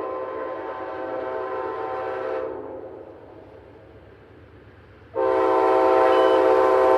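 Amtrak locomotive air horn blowing two long blasts of a multi-note chord: one fades out about two and a half seconds in, and a second, louder one starts about five seconds in. It is part of a horn show from the approaching Lake Shore Limited.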